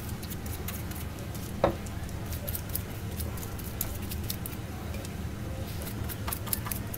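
Pastry brush dabbing sauce onto chicken wings on a foil-lined baking tray: soft wet ticks and foil crinkles, with one sharper tap about one and a half seconds in, over a steady low hum.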